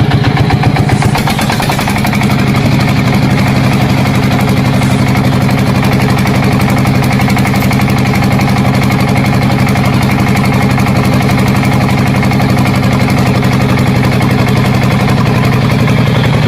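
Small engine of a home-built mini bulldozer running steadily with a fast, even firing beat. Its note shifts slightly about two seconds in, then holds.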